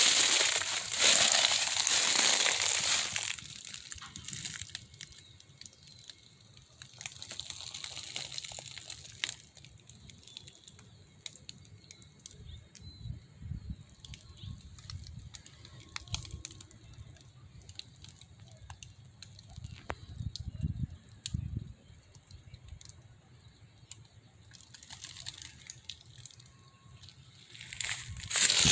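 Footsteps crunching through dry leaves and seed pods, loudest for the first few seconds and again near the end, with a quieter stretch of faint rustles and clicks in between.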